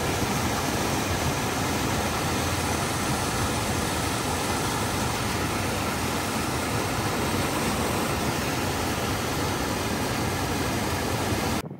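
Steady road and engine noise of a moving vehicle, cutting off abruptly near the end.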